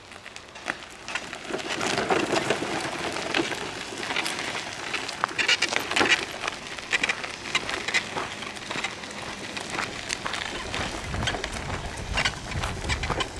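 Gravel crackling and crunching under the tyres of a Permobil F3 power wheelchair as it drives past, loudest as it passes close by about six seconds in.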